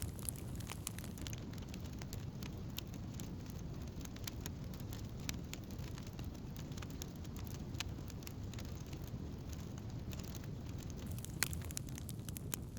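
Wood campfire burning: a steady low rumble of flames with scattered sharp crackles and pops of burning wood, coming more often near the end.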